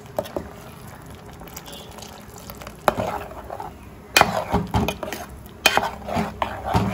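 Steel ladle stirring a thick, wet curry in a pan, with squelching and a few sharp knocks as it strikes the pan, busier from about four seconds in.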